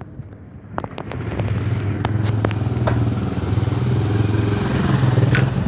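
A steady low engine hum that comes in about a second in and holds, with scattered clicks and rattles over it.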